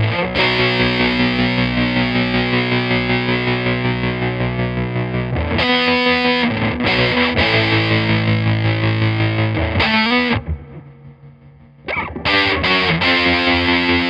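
Electric guitar played through a fuzz pedal into an EarthQuaker Devices Hummingbird choppy tremolo: distorted chords ring out, chopped into an even, rapid pulsing. The playing drops away briefly about ten seconds in, then comes back.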